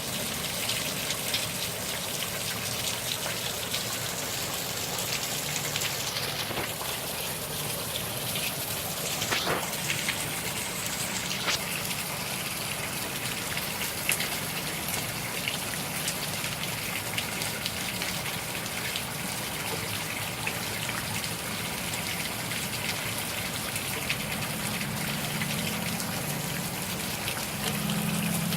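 Steady downpour of hurricane rain, with many individual drops splashing and water running off. A short falling tone sounds about nine seconds in, and a low hum comes in near the end.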